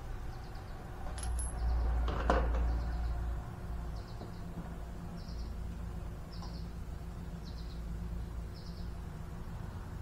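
Work noise at a lawn tractor's front wheel: a low rumble swells between about one and three and a half seconds, with a single sharp knock in the middle, over a steady low hum. Short high chirps repeat about once a second.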